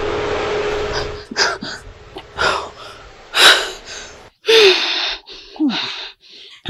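A woman gasping and crying out in shock: a string of loud breathy gasps starting about a second in, with a couple of short falling moans near the end. Background music fades out in the first second.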